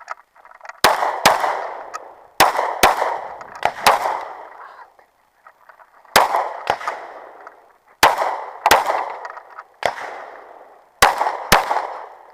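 Pistol shots fired mostly in quick pairs, about a dozen shots in all with short pauses between the pairs. Each shot echoes and dies away.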